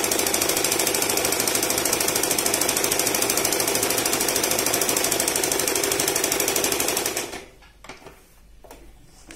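Usha Stitch Queen electric sewing machine running steadily at speed, its needle rapidly stitching a zigzag overcast edge-finishing stitch along cloth. It stops about seven seconds in, followed by a few soft clicks of the cloth being handled.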